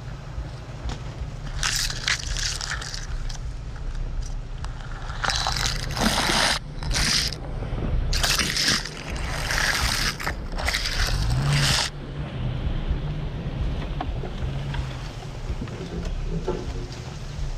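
Jeep Gladiator running slowly with a steady low rumble, while branches and brush scrape and swish across the truck and the hood-mounted camera in three loud rushes, the longest lasting about four seconds, then fade back to the engine alone near the end.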